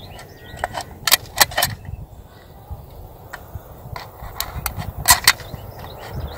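Folding knife blade cutting through the thin wall of an aluminum soda can, giving about ten sharp crackling clicks in irregular clusters as the metal gives way.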